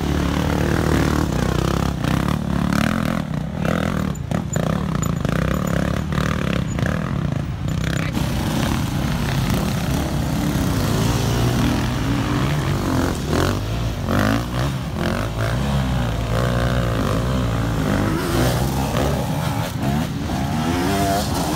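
Enduro dirt bike engines revving hard and unevenly, the pitch rising and falling with the throttle as the bikes claw up a steep loose climb, with a few short knocks in the first half.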